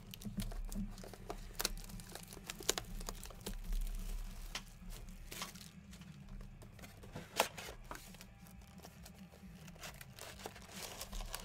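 Plastic shrink wrap crinkling and tearing as it is stripped off a cardboard trading-card box, in scattered crackles and clicks, over a low steady hum.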